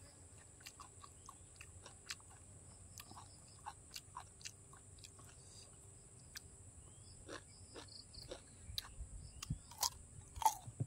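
Close-up chewing of crisp raw vegetables: many short crunches, with a louder bite into a raw carrot near the end.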